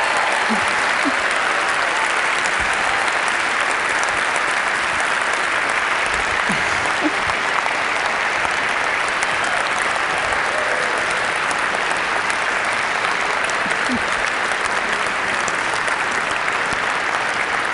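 A large theatre audience applauding, a dense, steady ovation that neither builds nor fades.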